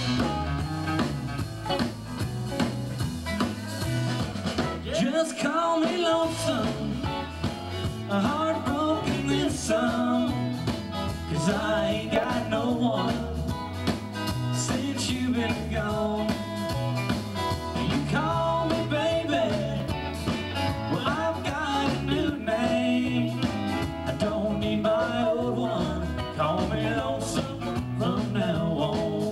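Live country-rock band playing, a 1964 Gibson SG electric guitar out front with the band behind it.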